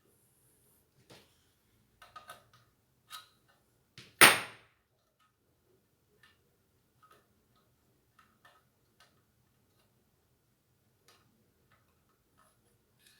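Scattered light clicks and knocks from parts and tools being handled while a ceiling fan is assembled, with one loud, sharp clack about four seconds in.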